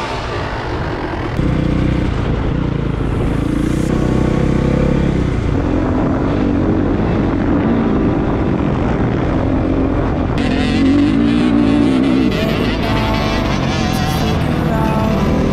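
Dirt bike engine running and revving as it rides over sand, its pitch rising and falling with the throttle, heard from the rider's helmet camera.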